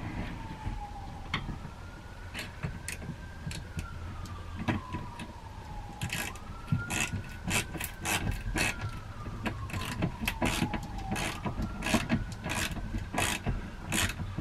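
Quarter-inch-drive hand ratchet with a half-inch socket turning a lag bolt into the wall, its pawl clicking in irregular runs of sharp clicks. A faint siren wails slowly up and down behind it.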